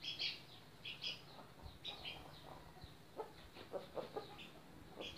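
Chickens clucking softly, with short high-pitched chirps coming in quick pairs several times.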